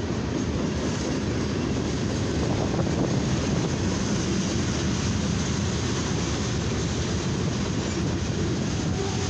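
Freight cars, a tank car and covered hoppers, rolling past: a steady rumble and rattle of steel wheels on the rails.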